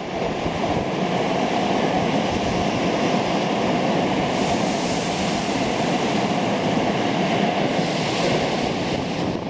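Subway train running along an underground station platform: a steady rumble of wheels and motors, with a hiss rising in the high range about halfway through.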